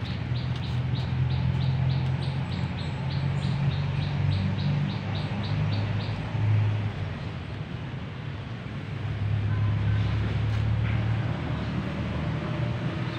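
A steady low engine-like hum, with a bird chirping in short, evenly spaced notes, about three a second, for the first half.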